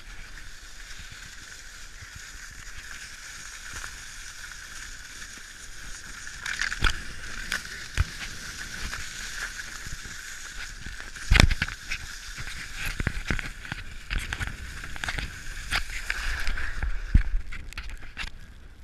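Skis scraping and hissing over an ice-crusted slope, with scattered sharp clatters and knocks, the loudest about eleven seconds in.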